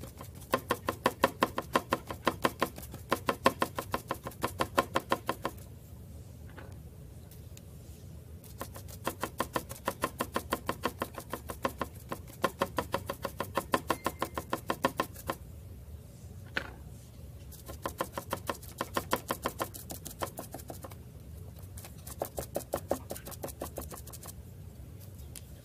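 A stencil brush dabbing paint through a stencil onto a wooden board: quick, even taps of about five a second, in runs of a few seconds with short pauses between them.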